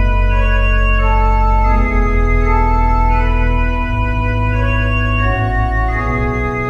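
Church pipe organ playing slow sustained chords over deep bass pedal notes, the harmony shifting every second or so.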